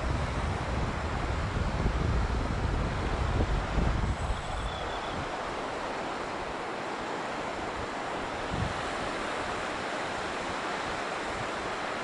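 Wind buffeting the microphone, easing off after about four seconds, over a steady wash of small waves on a sandy shore.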